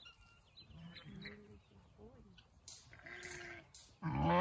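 Sheep bleating: a short bleat about three seconds in, then a loud, long bleat starting near the end.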